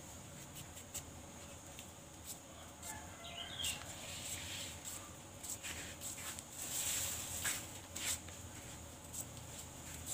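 A small knife scraping and slicing a ripe papaya held in the hand: short scrapes and clicks, busiest from about five to eight seconds in. A chicken calls once, briefly, about three seconds in, over a steady high hiss.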